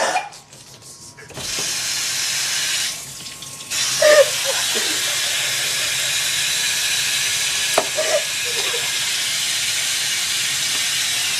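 Tap water running steadily into a sink, starting briefly, pausing, then running on from about four seconds in. Brief throat noises break through twice, about four and eight seconds in.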